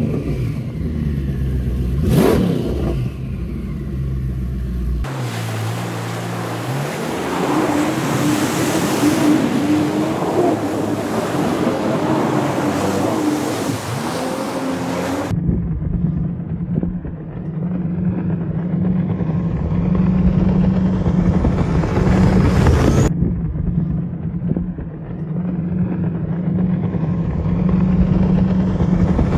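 Twin Mercury Racing 1350 outboard engines driving a powerboat at high speed: a steady engine drone under a rush of wind and water, with the pitch rising briefly near the start.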